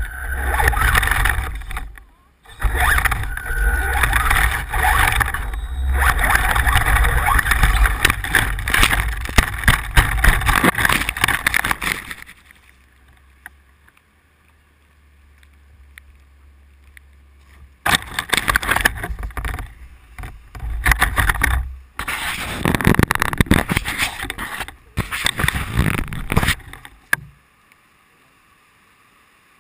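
Off-road RC car driving over rough ground, a loud rattling and scraping noise of the tyres and chassis that comes in spurts, with a long pause in the middle.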